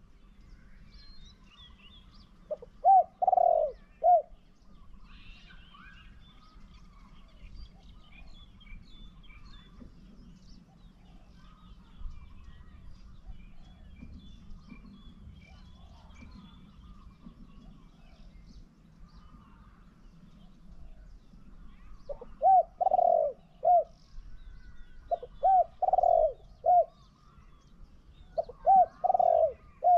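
Caged decoy spotted dove cooing: four phrases of three or four short low coos, one about three seconds in and three more close together near the end. Small birds chirp faintly in the background.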